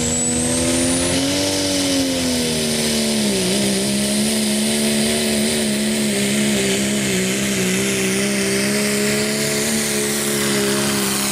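Diesel pickup truck pulling a weighted sled at full throttle, its engine holding one loud, steady note under heavy load. The note climbs slightly early on and dips briefly about three and a half seconds in, and a thin high whistle rises over the first second.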